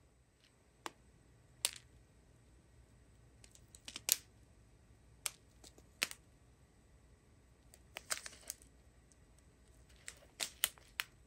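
Sharp crinkles and clicks of a strip of sealed plastic diamond-painting drill bags being handled and slid along, the small resin drills shifting inside. The clicks come singly and at irregular gaps, bunching together around four seconds in, around eight seconds, and near the end.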